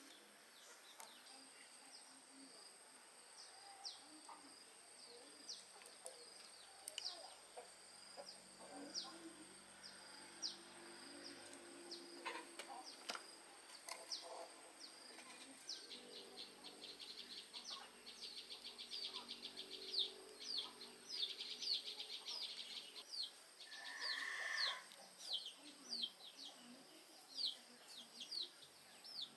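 Birds chirping faintly: many short, quick downward chirps that thicken into rapid trills about two-thirds of the way through, with a brief lower call near the end.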